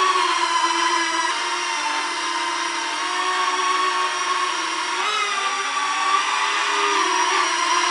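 Small toy quadcopter with four ducted propellers hovering, its electric motors and propellers giving a steady buzzing whine. The pitch wavers up and down now and then, most noticeably in the second half.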